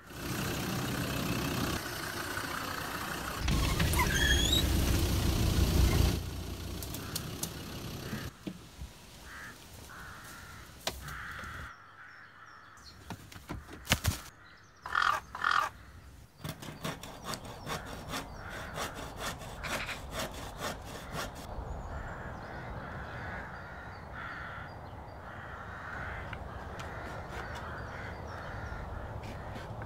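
Crows cawing repeatedly over a steady outdoor background, with scattered sharp clicks. The loudest part is a low rumble in the first six seconds.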